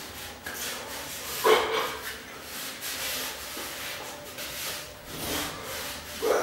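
Irregular rubbing and rustling of a person's body movement, hands and clothing brushing as they sign vigorously, with a louder brief noise about a second and a half in and another near the end.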